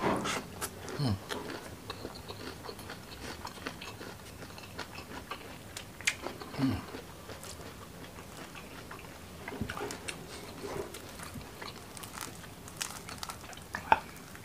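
A man chewing and biting a mouthful of fried gourami in chili sambal, close to the microphone: wet mouth sounds and small crunches, with a sharp click near the end.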